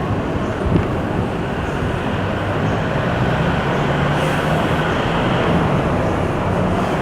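Large diesel bus engine running amid road noise, a steady roar that grows slightly louder a little under halfway in.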